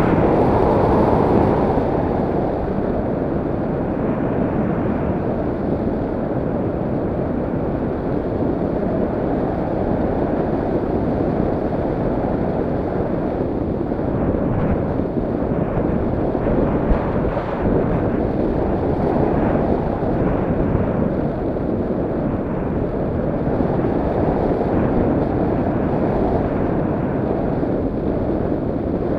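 Low, steady rush of wind noise from air streaming past the onboard camera of an RC airplane in flight, a little louder in the first couple of seconds.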